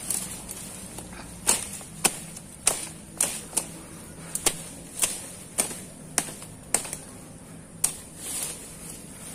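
Dry sticks and brush cracking and snapping underfoot and by hand in dense undergrowth: a run of sharp cracks about two a second, over a steady high hiss.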